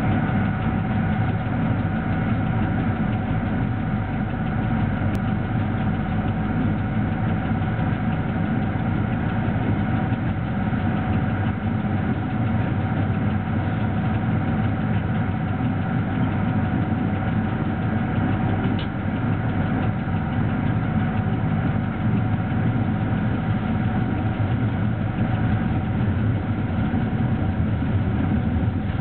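BDZ class 46 electric locomotive under way with a freight train, heard from its cab: a steady low drone of the running locomotive and wheels on rail, with a thin steady whine above it.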